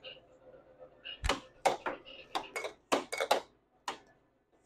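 Air hockey strikers hitting the puck and the puck knocking against the table's rails, a quick irregular run of sharp plastic clacks, some close together, starting about a second in.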